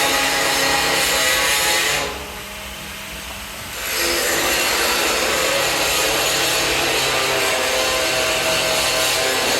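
Mini crucible furnace running during a copper melt: a loud, steady rushing noise with a faint hum of steady tones. It drops away about two seconds in and comes back nearly two seconds later.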